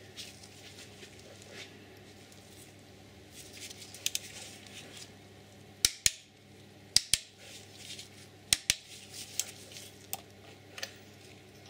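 Torque wrench on a spark plug socket tightening a spark plug to 30 Nm: a series of sharp metallic clicks, several in close pairs, most of them in the second half.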